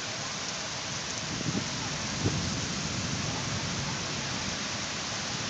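Steady heavy rain falling during a thunderstorm, with a low rumble of thunder through the middle and two brief sharp knocks.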